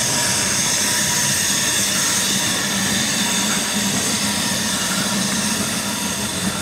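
Steam tank locomotive standing in the station, hissing loudly and steadily as steam escapes near the cab.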